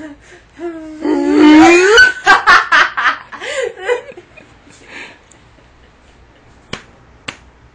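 A woman laughing hard and uncontrollably, in gasping, high-pitched bursts that are loudest from about one to four seconds in and then die down. Two sharp clicks sound near the end.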